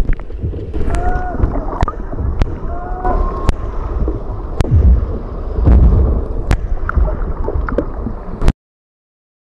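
Water churned by a freestyle swimmer, heard underwater: a muffled low churning of water and bubbles with sharp clicks and knocks scattered through it. It cuts off abruptly near the end.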